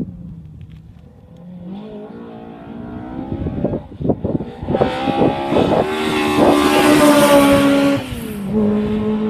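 Ford Escort Mk2 RS rally car's engine revving hard as it accelerates through several gear changes towards the listener, with a few sharp cracks, getting louder to a peak about seven seconds in. Near eight seconds the revs drop suddenly and the engine then holds a steady note.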